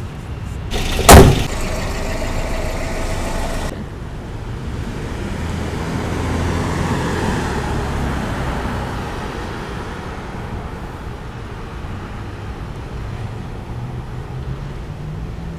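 Street traffic: a loud thump about a second in, then a motor vehicle passing, its sound swelling and fading around the middle.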